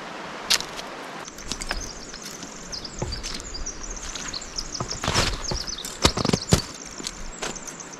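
A songbird singing high, rapid chirping phrases over and over, with a hiker's footsteps and a few sharp knocks, the loudest of them about five to six and a half seconds in.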